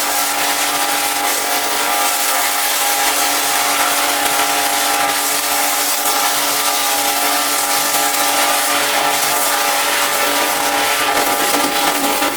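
High-pressure washer running steadily: a constant motor whine under the hiss of the water jet spraying.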